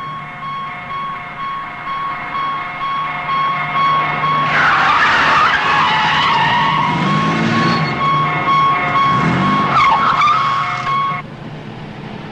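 Car-chase sound effect: a car's engine revving hard and its tyres screeching, the loudest part starting about four seconds in and dying down near the end. A steady high tone runs underneath and stops shortly before the end.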